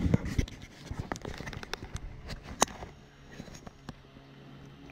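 Irregular clicks, knocks and rubbing from gear being handled against the inflatable boat's vinyl hull, with one sharper knock about two and a half seconds in. The knocks then thin out to a faint steady hum.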